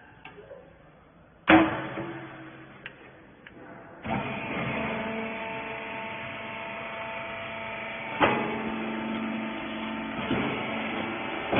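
A loud metallic bang, then from about four seconds in the rag compression baler's motor and hydraulic pump start running with a steady hum, with a clank twice more as it runs.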